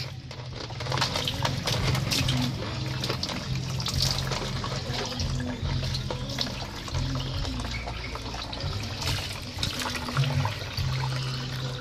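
Water pouring and splashing in a plastic basin as a dog is washed, with many small irregular splashes throughout.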